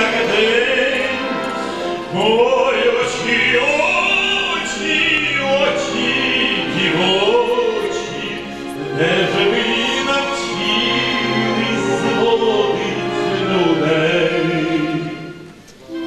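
Male operatic tenor singing with a string orchestra into a microphone, his voice hoarse and strained from a heavy cold. Long held notes with vibrato, and a brief drop in level near the end at a phrase break.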